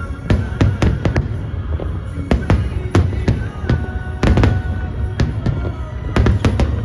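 Aerial fireworks bursting in a rapid, irregular run of sharp bangs, several a second, over a continuous low rumble.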